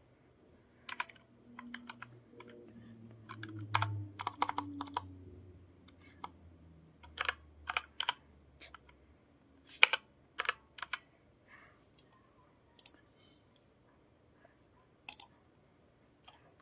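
Keystrokes on a mechanical keyboard typing into a browser: irregular sharp key clicks in short runs with pauses between them, becoming sparse in the second half.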